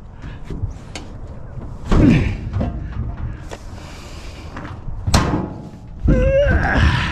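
Heavy knocks and thuds, with a door slamming about two seconds in and again about five seconds in, and a short wavering squeak about six seconds in.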